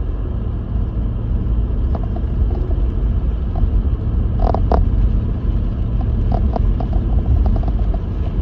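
Lexus GX470 driving on a snow-covered road: a steady low rumble of tyres and engine, with a couple of sharp knocks about halfway through and a run of small clicks after them.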